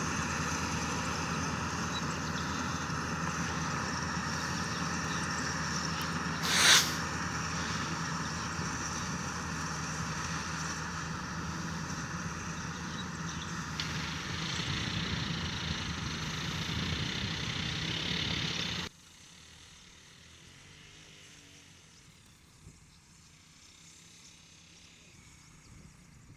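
World rice combine harvester's engine running steadily, with one short loud burst about seven seconds in. The engine sound cuts off abruptly about two-thirds of the way through, leaving only faint background.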